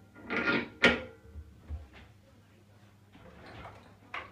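Steering track rod being knocked and fitted onto a kart's stub axle: a short scrape, then a sharp click about a second in, followed by a few lighter clicks and another near the end.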